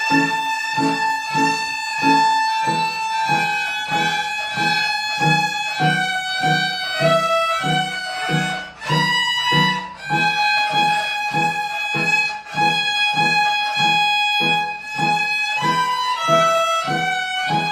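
Violins playing a simple children's song melody in long, even notes that step up and down, over a low accompaniment pulsing in a steady beat of about two to three a second.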